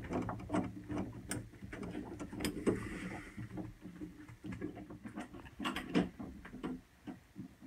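Irregular clicks, taps and light knocks of hands and tools working on a freezer's evaporator fan assembly as its ground wire and parts are fitted.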